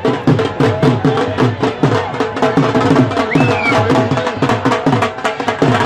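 Fast, steady drumming, about four beats a second, with deep strokes that each drop in pitch.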